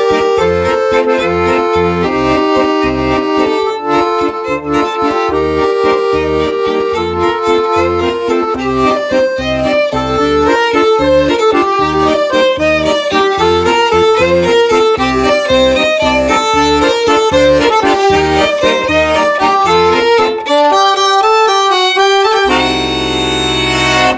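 Violin and piano-accordion duet playing a maneo, a Galician folk dance tune: the violin carries the melody over the accordion's steady bass-and-chord beat. The tune ends on a held final chord near the end.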